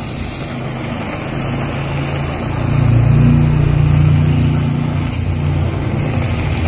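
Handheld kitchen blowtorch flame making a steady roar as it browns the melted cheese topping. It grows louder about two and a half seconds in.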